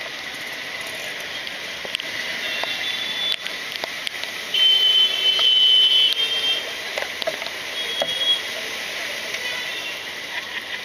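Rainy street traffic: a steady wash of rain and engine noise, with high-pitched vehicle horns honking several times, the loudest and longest about halfway through, lasting roughly two seconds.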